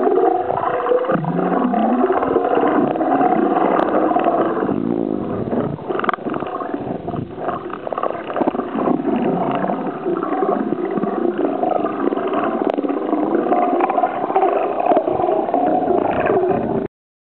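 Muffled underwater noise heard by a camera below the surface: a dense, steady rushing sound with wavering tones drifting up and down. It cuts off suddenly near the end.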